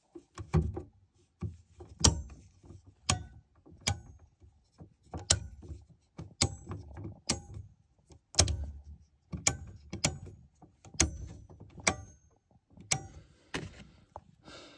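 Toggle circuit breakers in an RV's breaker panel being snapped by thumb, one after another, checking each circuit: a run of sharp clicks, each with a dull thump, about one a second.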